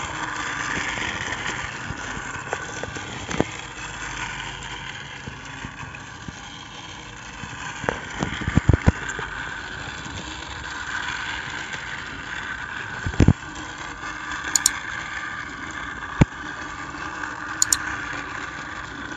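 Small battery-powered toy train motor whirring steadily as the engines run around a plastic track, with a few sharp clicks, a cluster of them about halfway through.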